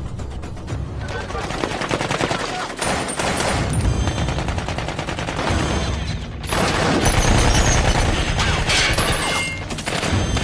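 Film soundtrack of a street firefight: sustained automatic gunfire, many rapid shots overlapping. It dips briefly about six seconds in, then comes back louder.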